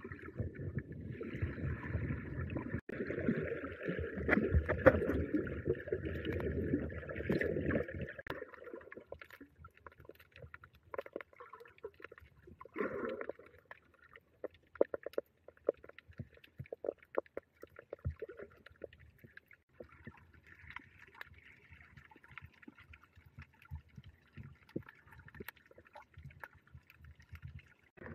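Muffled water sloshing and gurgling picked up by an underwater camera. It is dense for the first eight seconds or so, then thins to scattered clicks and crackles, with a brief swell about halfway through.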